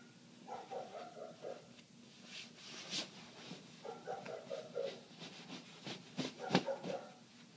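Dog barking, muffled through closed windows: two runs of rapid barks, each about a second long, one near the start and one about four seconds in.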